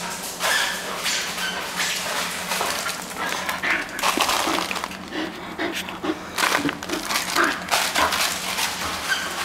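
A bull terrier's claws clicking and scrabbling on a hard tiled floor as it moves about close up, with brief whines from the dog.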